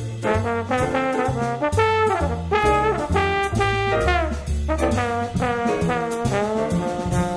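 Background music: a jazzy brass tune with notes that slide in pitch, over a steady bass line and drums.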